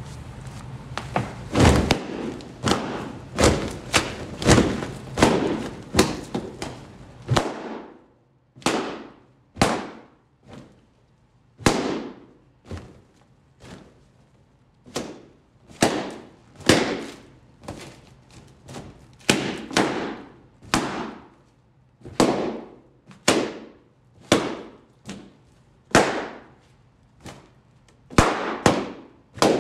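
Balloons bursting one after another as a booted foot stomps on them, about one bang a second. Each is a sharp pop with a short echo, and the bangs come closer together in the first few seconds.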